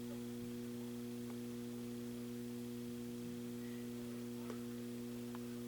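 Steady electrical mains hum: a low, constant buzz with a few overtones and no pulsing.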